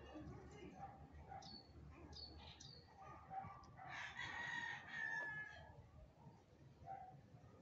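A rooster crowing once, starting about four seconds in and lasting under two seconds, over faint outdoor background. A few short high chirps come before it.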